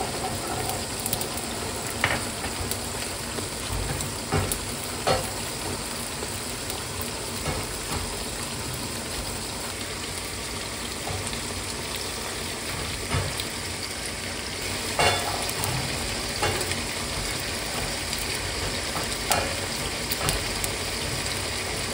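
Pork ribs frying in their own rendered fat in a pan: a steady sizzle. Now and then the sharp click of tongs against a comal as garlic cloves and dried chiles are turned.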